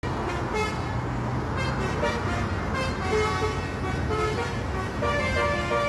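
Basuri multi-tone telolet bus horn playing short melodic phrases of stepped notes, running into a continuous tune near the end, over the low steady running of the bus's engine.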